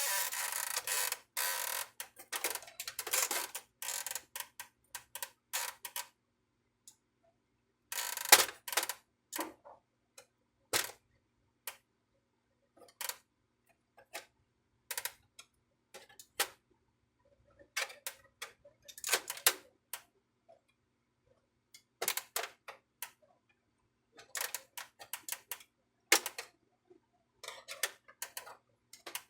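Irregular clicks, taps and short rattles of an inkjet printer's plastic parts being handled during disassembly, with a longer scraping rustle in the first few seconds.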